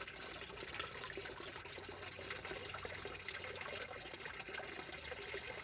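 Water trickling steadily into a small backyard fish pond, splashing at the surface.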